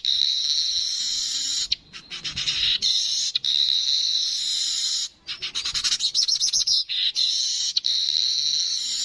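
Yellow-headed manyar (weaver bird) singing: runs of rapid ticking notes that speed up and merge into long, buzzing wheezes, repeated about three times.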